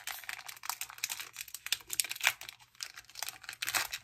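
Foil wrapper of a Pokémon booster pack crinkling and tearing as it is pulled open by hand, a quick run of irregular crackles.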